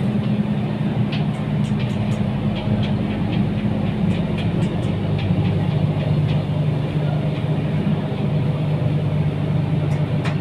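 A steady, loud low machine-like hum, with scattered faint clicks over it.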